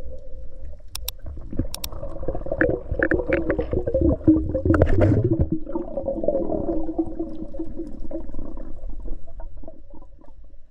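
Underwater sound picked up by a camera below the surface: a steady wavering hum with a few sharp clicks and knocks, and a louder rumbling stretch around the middle.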